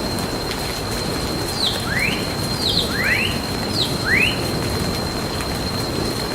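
Steady rain falling, with a bird giving a handful of quick rising chirps a couple of seconds in, and a thin steady high tone running under it.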